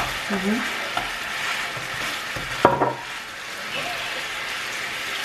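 Hamburgers frying in olive oil in a frying pan, a steady sizzle, while a utensil stirs and pokes them. There is one sharp knock about two and a half seconds in.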